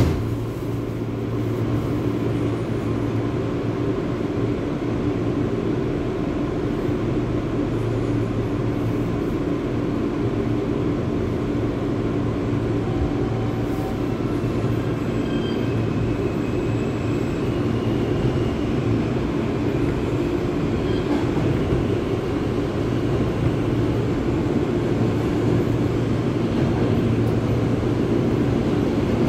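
Steady running noise heard from inside an R160 subway car as the train travels through the tunnel: wheels rumbling on the rails with a constant low drone from underneath the car. A brief sharp knock comes right at the start.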